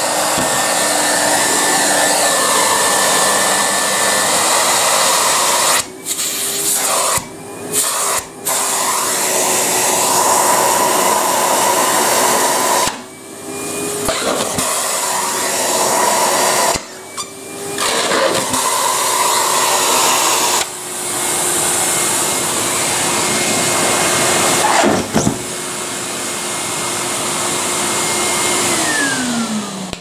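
Numatic Henry vacuum cleaner running, a steady motor hum under loud rushing air as it sucks strips of toilet paper up its hose; the sound dips briefly several times. Near the end it is switched off and the motor winds down, its hum falling in pitch.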